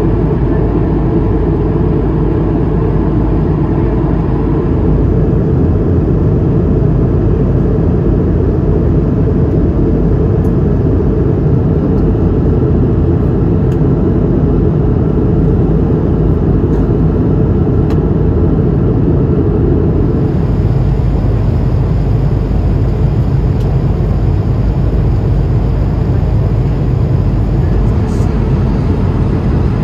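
Steady cabin roar of an Airbus A220-300 in cruise: airflow and engine noise heard from inside the cabin. Its tone shifts slightly about twenty seconds in.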